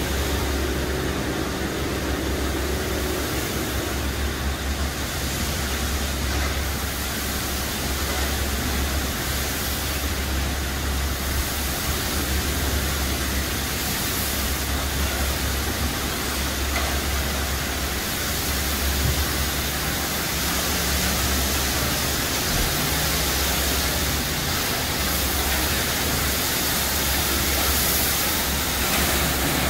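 Brush gantry truck wash working along a truck's side: a steady hiss of water spray against the truck, with a constant low hum from the machinery underneath.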